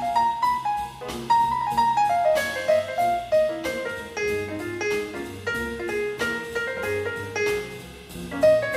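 Big band jazz played live: a piano plays quick single-note lines that climb and fall, over bass and drum kit with regular cymbal strikes.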